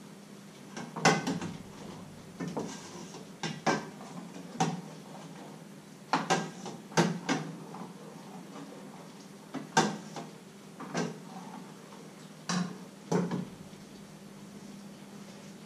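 Cookware clattering: pot lids, pans and utensils knocked and clinked against each other on an electric stove, about a dozen irregular clacks over a low steady hum.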